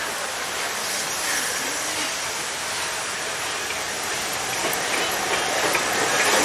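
Steam locomotive rolling slowly into the station alongside the platform, a steady rushing noise that grows louder as it draws near and its tender passes close by.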